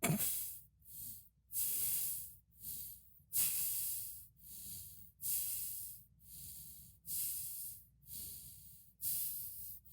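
A person breathing hard through the nose with the mouth held shut: a string of hissing breaths about one a second, alternating longer and shorter.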